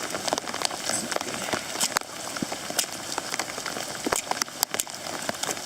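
Heavy rain pouring down, with many sharp, irregular taps of drops striking close by.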